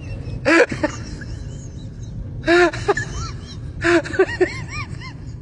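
Puppy whimpering: clusters of short squeaky whines that rise and fall, about half a second in, around two and a half seconds and again around four seconds in.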